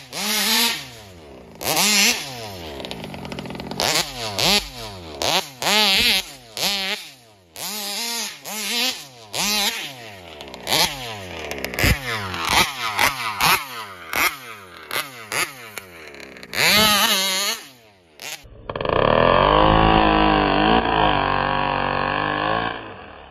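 Taylor RC 71 Supreme's two-stroke gas engine, loud, revving up and down about once a second on repeated throttle blips as the RC buggy rips across grass. About 18 seconds in it switches to a steadier hold at high revs that sounds duller.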